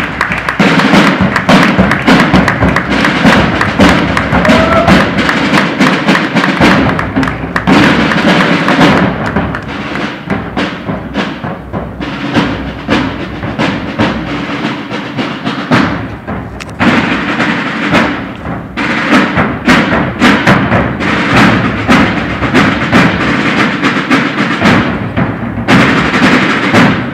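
Marching band playing loudly in a gymnasium, brass over drums, with many sharp drum hits. The music drops to a quieter passage for several seconds in the middle, then the full band comes back and cuts off at the end.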